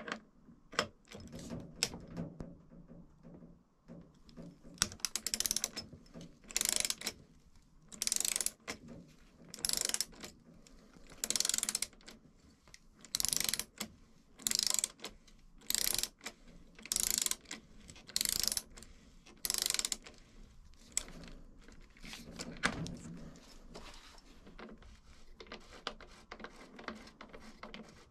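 Ratchet wrench clicking in repeated strokes, about one every second and a half, while the pivot bolts of a mountain bike's rear linkage are loosened. Scattered clicks and knocks of tool handling come before and after.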